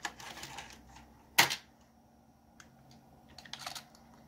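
Clicking of a computer keyboard as a short DOS command is typed, with one sharper, louder click about a second and a half in and a quick run of lighter clicks near the end.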